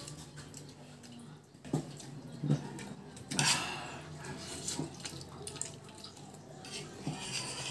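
Wet chewing and slurping as an octopus tentacle is bitten and pulled with the teeth, with a louder wet slurp about three seconds in and a few soft clicks.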